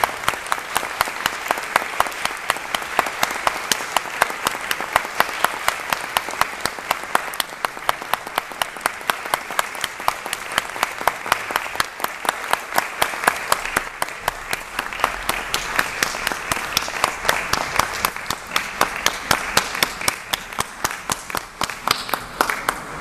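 Concert audience applauding steadily, with one pair of hands close by clapping about three times a second over the massed clapping.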